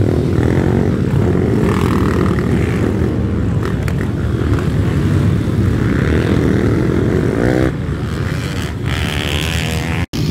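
Pit bike engines revving hard on a motocross track, the pitch rising and falling as riders open and close the throttle, with one climbing rev about three quarters of the way in. The sound cuts out for an instant near the end.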